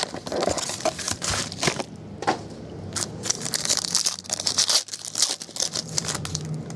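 Plastic shrink-wrap and a foil card-pack wrapper crinkling and crackling irregularly as they are handled and torn open; it dies down about five seconds in, leaving a faint low hum.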